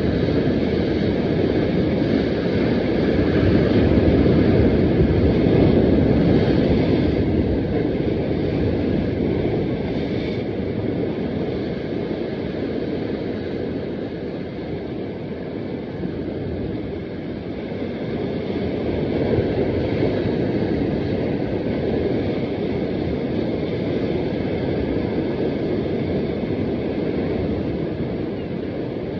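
Sea surf washing against rocks, with wind buffeting the microphone: a steady rushing noise that swells a few seconds in and again past the middle.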